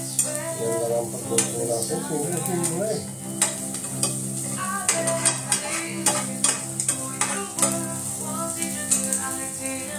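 Food frying in oil in a pan, a steady sizzle, with a cooking utensil stirring and knocking against the pan many times. Background music plays underneath.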